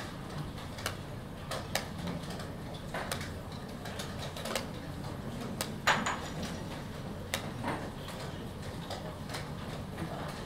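Wooden chess pieces set down on a board and chess clock buttons pressed in quick blitz play: irregular sharp clicks and knocks, the loudest about six seconds in, over low steady room noise.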